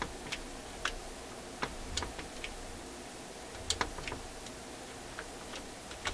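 Light metallic clicks and ticks at irregular intervals as the levers of a Marconi fold-out record player's automatic shut-off mechanism are moved by hand. They are working against a spring that is pulling hard on the mechanism.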